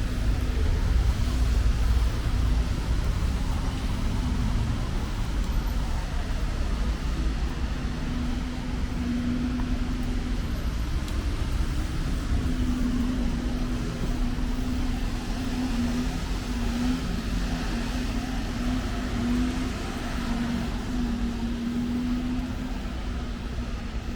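Road traffic on a city street: a steady low rumble of vehicles with an engine drone that wavers in pitch.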